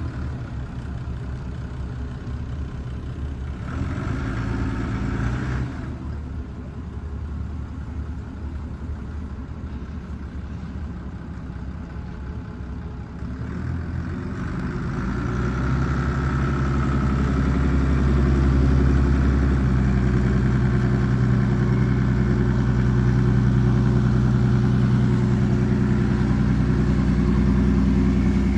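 Inboard engine of a Zodiac Hurricane rigid inflatable boat idling with a brief rise about four seconds in, then throttled up about halfway through and running steadily louder under way.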